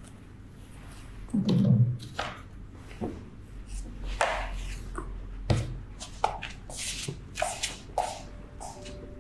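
Slippers and shoes being handled and set down on a wooden shoe bench and the floor. There is a dull thump about one and a half seconds in, then a run of light taps and scuffs.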